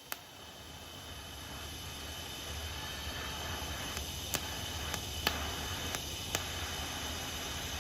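TIG welding arc burning steadily: an even hiss over a low electrical hum, growing slightly louder over the first couple of seconds, with a few sharp ticks and crackles.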